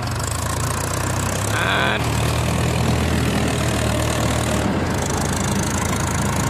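Mahindra tractor diesel engines running steadily under heavy load in a tug-of-war, the lugged rear tyres spinning and churning dry dirt and gravel. A brief high-pitched sound about two seconds in.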